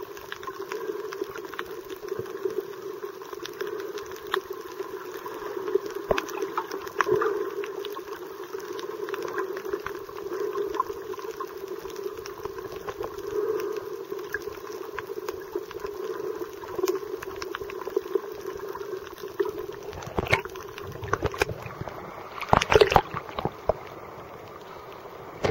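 Underwater ambience heard through a submerged camera: a steady hum with scattered clicks and crackles. Near the end come louder bursts of splashing and sloshing as the camera breaks the sea surface.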